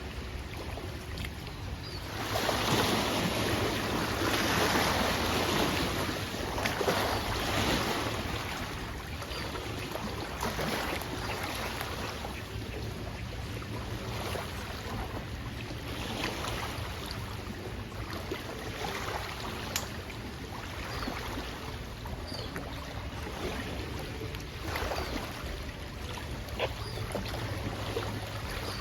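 Wind and small waves lapping at a lakeshore: a steady rush of noise that swells for several seconds about two seconds in, then settles.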